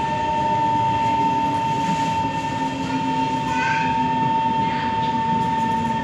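Onboard sound of an SMRT Kawasaki C151 train: a steady rumble with a constant high-pitched tone that holds one pitch throughout.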